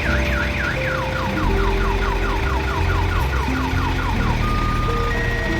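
Multi-tone reversing horn on a Hydra mobile crane cycling through its patterns: a fast warble, then rapid falling whoops, then steady beeps about four seconds in. A diesel engine runs underneath.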